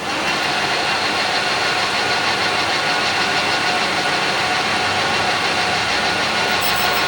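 Manual lathe running while skimming a brake disc rotor: a loud, steady machining noise with several fixed high tones over it. The noise steps up at the start and then holds even.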